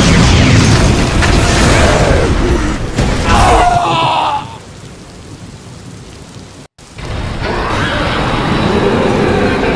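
A film-style soundtrack: a loud low rumble with booms that dies away about four seconds in, a short lull cut by a moment of total silence, then music starting up again.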